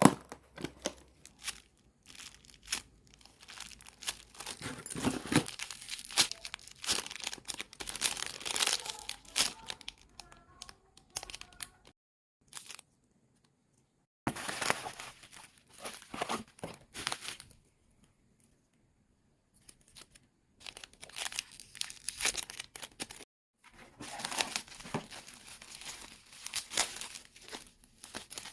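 Packaging being crinkled and torn open by hand in irregular bursts of crackling, stopping twice for a couple of seconds midway.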